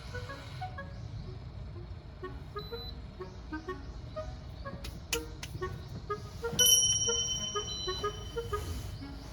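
Background music of short, light melodic notes over a low steady rumble, with a bright ringing chime-like note about six and a half seconds in.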